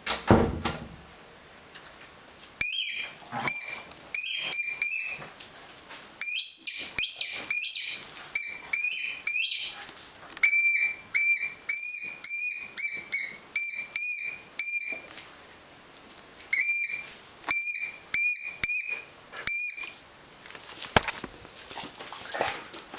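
Squeaky dog toy squeaked over and over as a beagle chews it: short high squeaks of a steady pitch, often about three a second, in runs with short pauses between. A thump at the very start.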